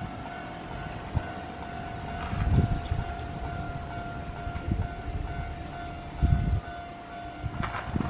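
Japanese railway level crossing alarm sounding, one steady high tone held throughout, with irregular low gusts of wind on the microphone.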